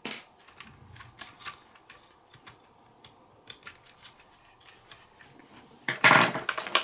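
Small clicks and taps of plastic and metal RC car parts being handled on a workbench, with a louder clattering rattle near the end.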